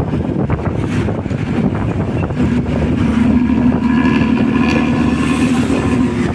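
Hino bus's diesel engine running through its growling ('ngorok') exhaust as the bus drives along. A steady droning tone rises over the low rumble about two and a half seconds in and holds until shortly before the end.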